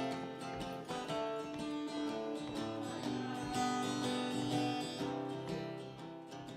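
Acoustic guitar music, strummed and plucked, fading out near the end.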